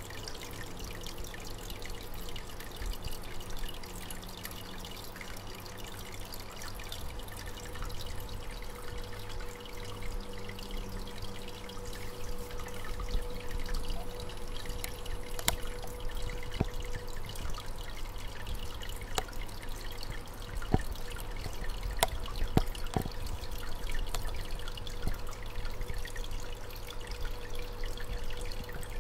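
Aquarium water trickling steadily over a low steady hum, with a few sharp clicks in the second half.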